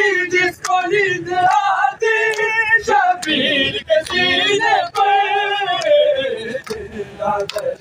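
Men chanting a noha, a Shia lament for Hussein, in a sustained melodic line, led on a microphone. Sharp slaps of matam, chest-beating by the mourners, keep a beat of a little more than one a second.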